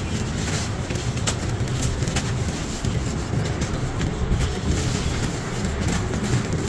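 Hands crushing and rubbing dry, crumbly sand-cement chunks into a pile of grit: a steady gritty crunching with scattered sharp crackles.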